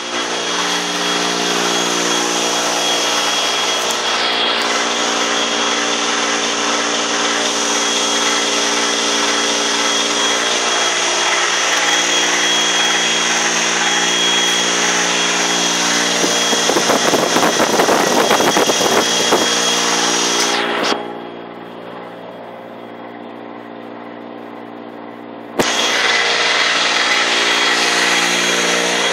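Battery-powered DC electric motor spinning a tractor-mounted snowblower, a steady whine with a hum beneath it. Midway it turns rougher and slightly louder for a few seconds; about two-thirds through it drops to a much quieter hum, then comes back to full level with a sharp click near the end.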